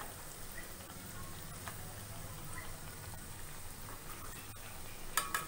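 Potato and black-chickpea tikkis shallow frying in oil, a faint steady sizzle and bubbling. About five seconds in, a brief clatter of the slotted spatula against the metal pan as the tikkis are turned.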